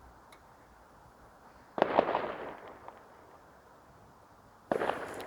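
Fireworks going off: two sudden bursts of bangs and crackling, one about two seconds in that fades over about a second, and another near the end.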